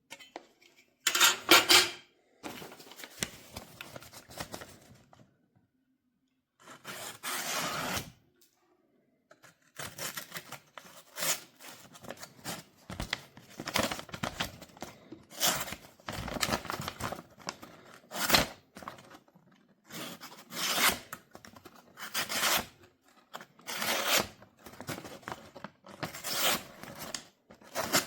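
Packaging being torn open and handled: repeated short tearing and rustling noises with brief pauses between them.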